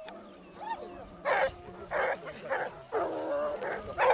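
A pack of hare hounds giving tongue while working a hare's scent: a string of short baying cries, several hounds at once, the pitch of each cry bending up and down, about one every half second.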